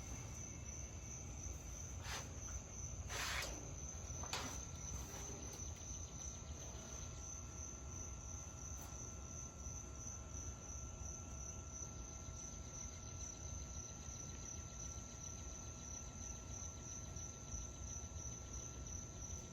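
Crickets chirping steadily in a high, even trill. There is a faint low rumble underneath, and a few short clicks come in the first five seconds.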